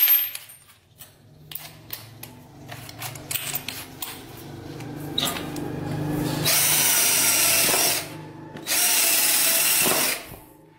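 24 V cordless drill boring into a clay brick. After a few seconds of small handling clicks, the drill builds up, then runs loud twice for about a second and a half each, with a short break between, and stops near the end.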